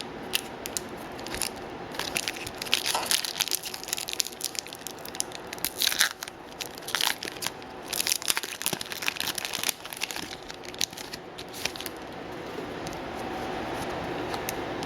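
A foil trading-card pack wrapper crinkling and tearing in dense, irregular crackles as a pack is opened and handled, quieting after about twelve seconds.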